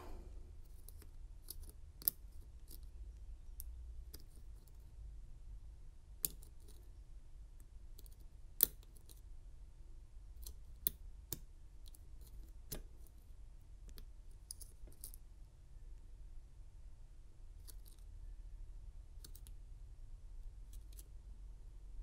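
Faint, irregular metallic clicks and ticks of a lock pick working the pin stack of an American Lock 747 padlock, with the cylinder held in a false set by a tension wrench. A few sharper clicks stand out, the loudest about eight and a half seconds in.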